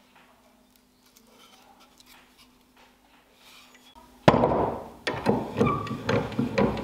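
Faint handling sounds, then about four seconds in a sudden loud bang sets in, followed by a quick rhythmic beat with held tones: background music starting.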